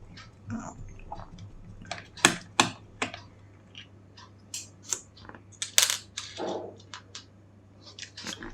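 Scattered small clicks and light taps of a precision screwdriver and tiny screws as screws are taken out of a laptop's bottom panel, with a few louder clicks among them.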